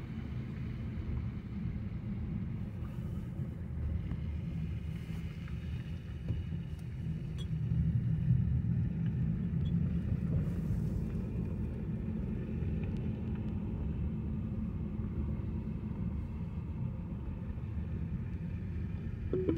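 Car road noise heard from inside the cabin while driving: a steady low rumble of engine and tyres, a little louder about eight seconds in.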